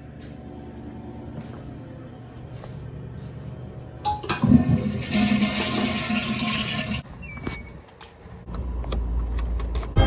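Toilet flushing: a loud rush of water begins about four seconds in and lasts about three seconds.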